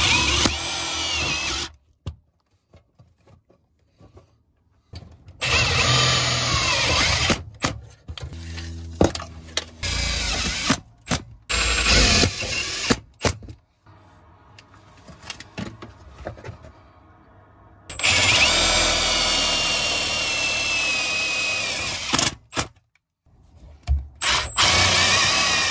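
Red cordless brushless drill driving screws to fasten diamond-plate aluminium sheeting, in about five runs of a few seconds each with short bursts and clicks between them; the longest run is near the end.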